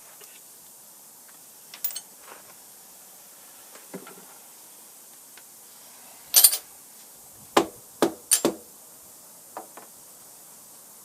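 Scattered metal clicks and clanks of hand tools and parts being handled on an old metal shaper during disassembly. The loudest clatter comes about six seconds in, followed by three sharp knocks over the next two seconds.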